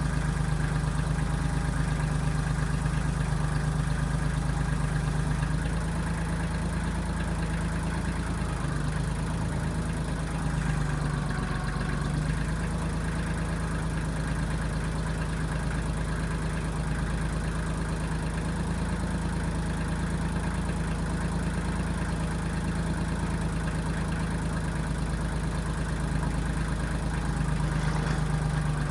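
1995 Kubota backhoe's diesel engine running steadily, slightly quieter for a stretch after about six seconds and picking up again near the end.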